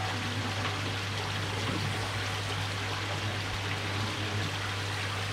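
Steady trickling, running water, with a low steady hum underneath.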